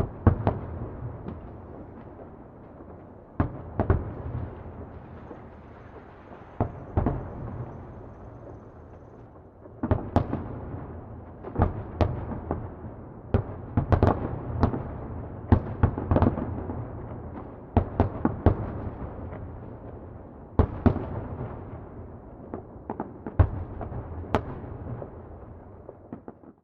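Fireworks exploding at a distance: sharp bangs in irregular clusters, each trailing off in an echo, over a continuous low rumble. The bangs come thickest from about ten to nineteen seconds in.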